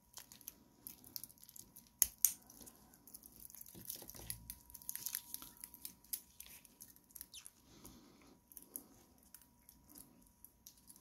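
Faint clicks and rattles of a stainless steel watch bracelet and its diver's buckle being handled, with the rustle of cotton gloves; two sharper clicks come about two seconds in.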